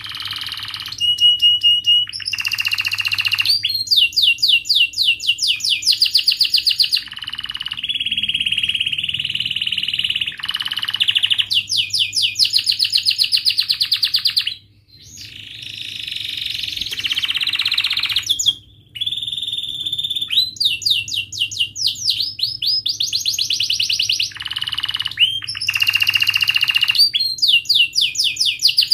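A domestic canary singing a long, continuous song of fast rolling trills, rapid repeated chirps and short held whistles, with brief breaks about fifteen and nineteen seconds in.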